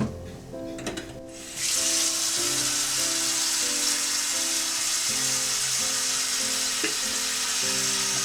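A kitchen tap is turned on about a second and a half in and runs in a steady hiss, likely rinsing the new air fryer's parts in the sink. A couple of light knocks come just before the water starts. Soft background music plays throughout.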